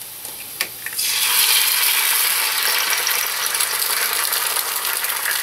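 An egg dropped into hot oil with browned garlic in a skillet: a couple of small clicks, then about a second in a loud sizzle starts as the egg hits the oil and keeps frying steadily.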